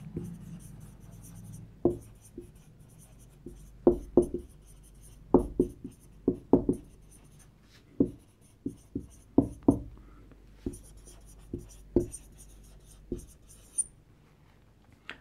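Marker writing on a whiteboard: irregular short strokes and taps of the tip as the letters are written, with brief pauses between words.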